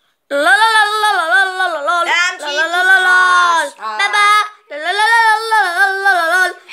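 A high-pitched voice singing in four phrases with short breaks, its pitch bending up and down.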